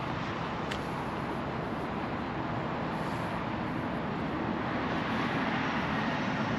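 Steady roadside traffic noise, a continuous rushing rumble that grows gradually louder toward the end.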